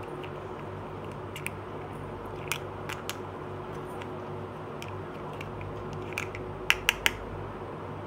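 Miniature plastic toy kitchen pieces (a toy frying pan with a plastic fried egg and a toy knife) being handled: scattered light clicks and taps, then three sharp clicks in quick succession near the end, over a steady low hum.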